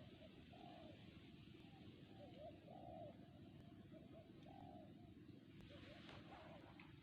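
Faint dove cooing: a string of short, soft low notes, a few each second, over a steady background hiss.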